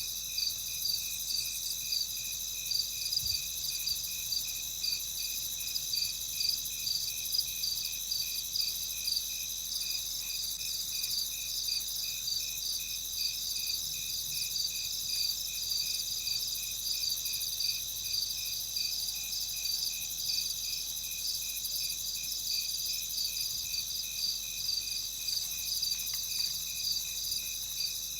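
Night insect chorus of crickets: a steady high trill with a regular chirping pulse about twice a second, going on unchanged.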